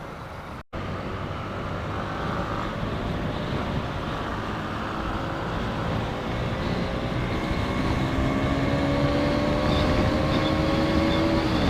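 Motorcycle engine running under way with wind and road noise, its note climbing slowly in the second half as the bike gathers speed. It cuts out briefly just under a second in.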